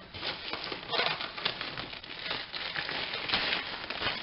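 A taped cardboard box being pulled and shifted out of its packaging: irregular rustling and scraping of cardboard with crinkly scuffs.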